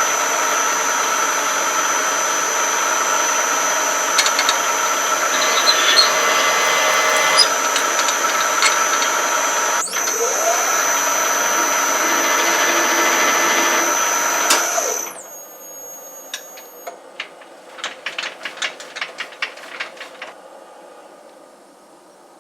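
An electric power tool runs with a steady high whine, breaks off for an instant about ten seconds in, resumes, then shuts off about fifteen seconds in. A quick series of light clicks and taps follows.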